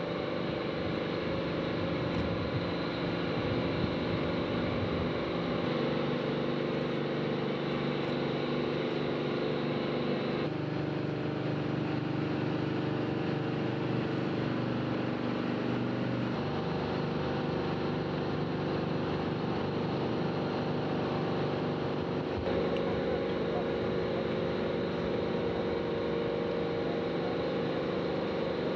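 Steady machinery hum of the launch-pad erector raising a Soyuz rocket toward vertical. The hum holds several steady tones, and their mix shifts abruptly three times.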